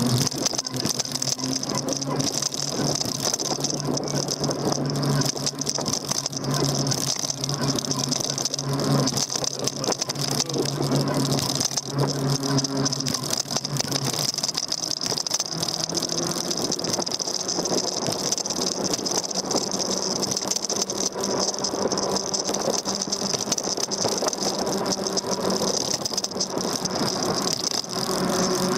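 Continuous rattling of a Daymak Max e-bike and its handlebar-mounted camera while riding over the road, with a steady high whine. A low hum underneath stops about halfway through.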